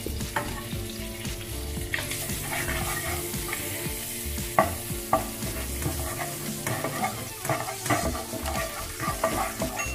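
Margarine sizzling as it melts in a nonstick frying pan, with the hiss building about two seconds in. A spatula stirs it, scraping and tapping against the pan.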